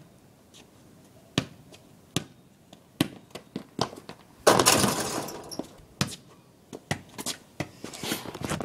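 A basketball bouncing on pavement a few times as a player dribbles in, then a dunk: the outdoor hoop's rim and backboard clang and rattle for about a second. The ball then bounces several more times.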